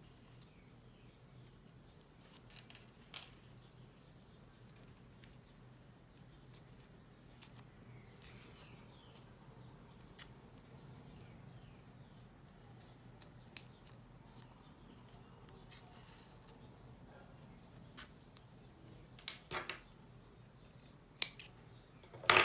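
Faint handling sounds of a grosgrain ribbon bow being hand-stitched, the needle and thread drawn through the ribbon, over a low steady hum. A few sharp clicks come near the end.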